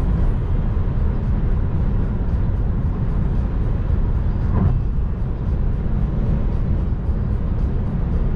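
Steady road and wind noise inside a Volkswagen ID.3's cabin at motorway speed, about 125–135 km/h: a low tyre rumble and wind rush, with no engine note from the electric drive. There is a brief louder moment about halfway through.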